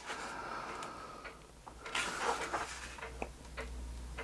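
Pages of a large book being turned by hand: paper rustling at the start and again about two seconds in, with a few light taps of paper.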